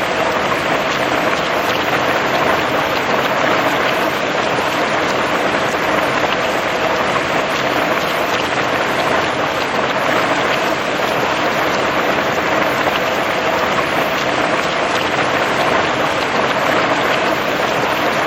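Steady heavy rain falling and pattering on surfaces, a dense even hiss with many small drop impacts.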